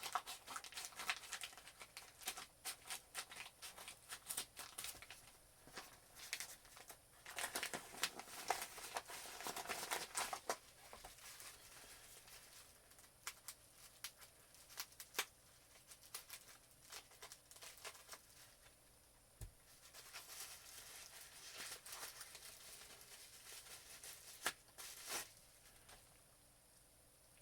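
A mailed package being opened by hand: packaging tearing and crinkling in quick crackles, busiest in the first ten seconds, then sparser rustles and a few sharp clicks until it settles near the end.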